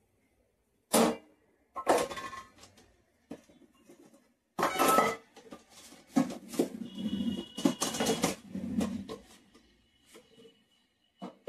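Stainless steel kitchen containers and lids clinking and clattering as they are handled and set down, a run of irregular knocks with brief metallic ringing, busiest in the middle.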